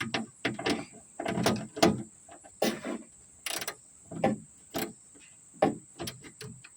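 Ratchet wrench on an 8mm socket clicking in about a dozen short, irregular strokes while a trunk-latch bolt is loosened.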